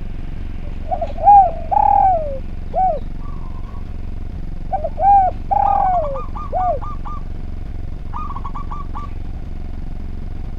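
Spotted dove (derkuku) cooing: two phrases of several arched coos, about a second in and again about five seconds in. Each phrase is followed by a quick run of short, higher notes, and a steady low hum runs underneath.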